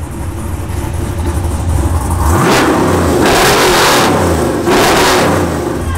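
A car or truck engine idling, then revved hard three times from about two seconds in, each rev a loud, rising surge.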